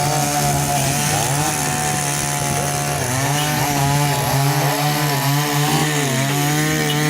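A small petrol engine running steadily at high speed, its pitch dipping briefly about three seconds in.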